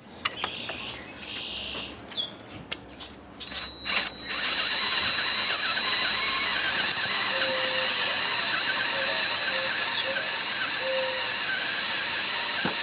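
Power drill boring into a broken steel head stud in a cylinder head, the bit squealing with a steady high whine. A few light handling clicks come first; the drilling starts a few seconds in and stops abruptly near the end.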